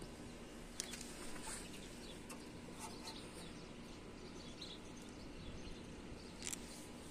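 Faint outdoor ambience: a steady low hum with a few light clicks, about a second in, near three seconds and near six and a half seconds, and small high chirps.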